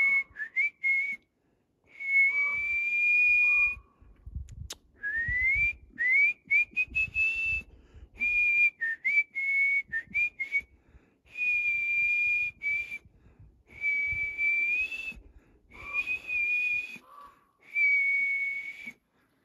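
A man whistling a tune in short phrases of held notes and a few upward slides, with brief pauses between the phrases.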